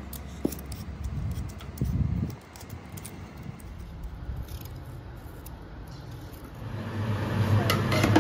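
Light clicks and scrapes of a hand peeler and knife working raw green mangoes, over a low rumble. About seven seconds in, a steady low hum comes up.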